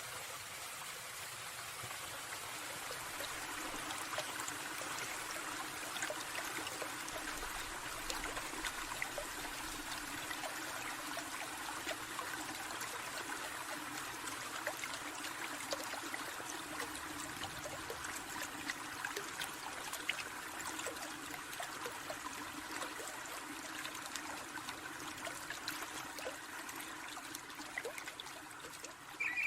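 A small stream trickling steadily, with many small splashes throughout.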